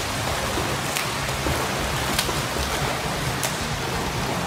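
Pool water splashing and churning as a swimmer swims front crawl. Sharp splashes come about once every second or so, over a steady wash of water noise.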